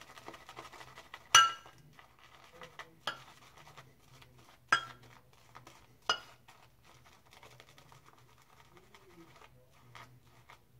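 Shaving brush loading soap in a ceramic pottery shaving bowl to build a proto lather: faint scrubbing of the bristles, with four sharp ringing clinks against the bowl in the first six seconds, the first the loudest.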